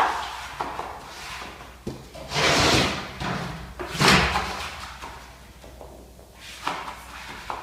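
Plastic wallpaper spatula scraping over freshly hung vinyl wallpaper, smoothing it into the corner. There are a few noisy strokes; the longest comes about two and a half seconds in and another about four seconds in.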